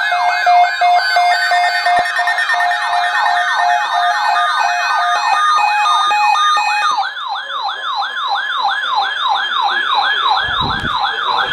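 Several weather alert radios sounding their alarm at once for a flash flood watch: a warbling siren tone sweeping upward about four times a second, with a steadier beeping tone under it. About seven seconds in, one of the radios stops and a single warbling siren carries on.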